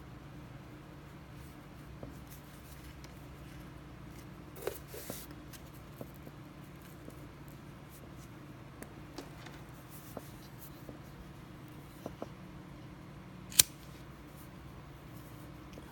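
Faint rustling and small ticks of fingers handling paracord, then one sharp click about three-quarters of the way through as a disposable lighter is struck and lights.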